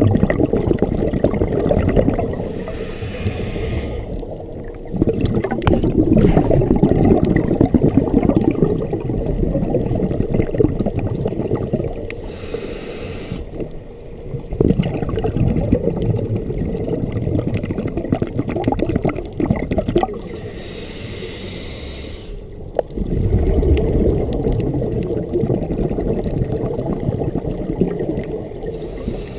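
Scuba diver breathing through a regulator, heard underwater: three breaths, each a short hiss as the regulator delivers air, followed by several seconds of loud bubbling and rumbling as the exhaled air escapes.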